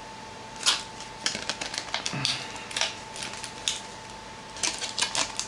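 Thin clear plastic bags crinkling and small plastic toy figures clicking as they are handled: irregular crackles and clicks, with a thicker cluster near the end.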